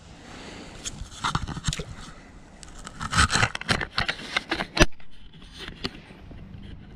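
Handling noise from a landing net and forceps while a caught trout is being dealt with: a run of irregular clicks and scrapes, busiest and loudest in the middle, over a steady background wash.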